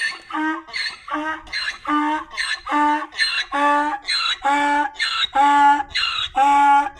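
Donkey braying: a long, repeated hee-haw, a harsh squealing in-breath alternating with a lower, pitched honk, about once a second and growing louder through the bray.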